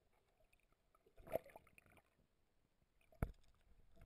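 Sound picked up underwater: two muffled knocks, one about a second in and a sharper one about three seconds in, over faint crackling and gurgling of water against the camera.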